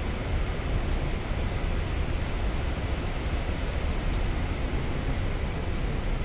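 Steady rushing noise inside a Boeing 777-200 cockpit in flight on approach: airflow around the flight deck and engine noise blended into an even, deep hiss with no distinct tones.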